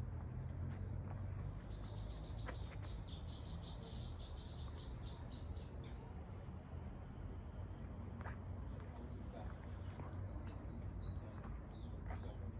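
A small songbird singing: a fast trill of rapidly repeated high notes lasting about four seconds, then scattered short chirps and slurred notes near the end. A steady low rumble runs underneath.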